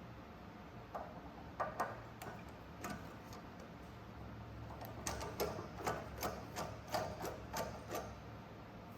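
Metal parts of a welding torch holder clicking and knocking against each other as they are fitted together by hand: a few scattered clicks, then a quicker run of clicks through the second half.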